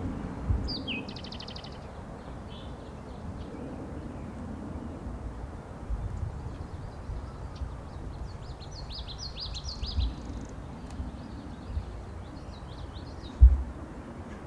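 Small songbirds chirping in short bursts of high calls over low steady outdoor background noise, with a short thump near the end.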